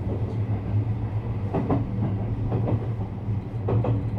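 JR West 321 series electric train running on the rails: a steady low hum, with the wheels clacking over rail joints a few times, some clacks coming in quick pairs.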